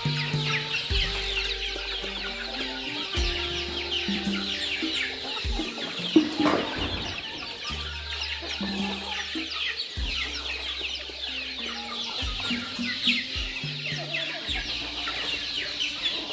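A flock of young chickens and chicks cheeping and clucking, a dense run of short high peeps, with one sharp louder sound about six seconds in. Music with a slow stepping bass line plays underneath.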